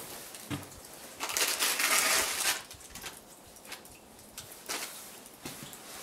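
Wood fire crackling and popping inside a small Bushbox LF camp stove, with scattered sharp snaps. About a second in, a louder hissing rush swells for about a second and a half, then fades back to the crackle.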